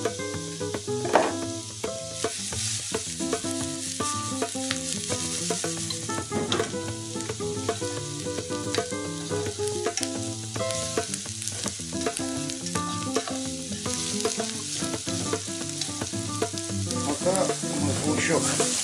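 Diced carrot and onion sizzling as they fry in oil in a frying pan, stirred with a spatula that clicks and scrapes against the pan now and then.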